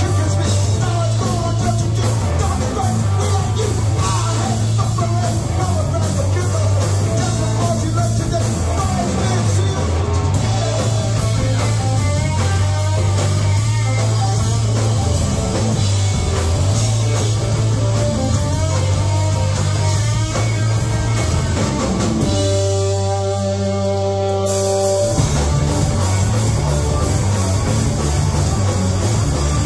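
A live rock band playing loud: electric guitar, bass, drums and a singer. Near the end the bass and drums stop for about two seconds, leaving one held note, then the full band comes back in.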